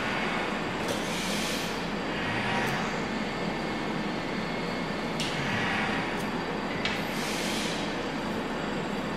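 Steady background rumble and hiss, with three soft swishes and a few faint clicks from hands working a small screwdriver against the coil posts of a rebuildable atomizer deck.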